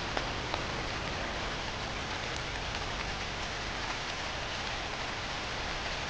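Steady rain falling, an even hiss with a few faint sharper drop ticks.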